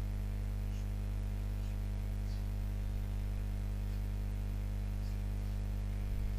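Steady electrical mains hum on the recording, with a few faint ticks.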